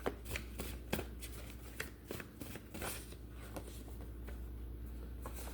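Cards from a deck being handled and dealt out: a run of irregular soft flicks and slaps, busier in the first few seconds and sparser toward the end.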